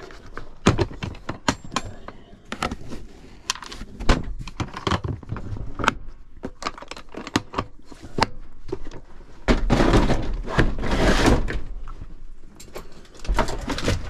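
Hands rummaging through parts: a string of sharp clicks, knocks and clatter. About ten seconds in there is a louder stretch of rough scraping and rustling that lasts a couple of seconds.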